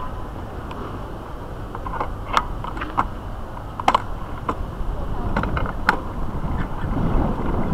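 A bicycle ridden slowly over city pavement, with wind and road rumble on the bike-mounted microphone that grows louder near the end. Several sharp clicks and creaks from the bike's parts are scattered through the middle.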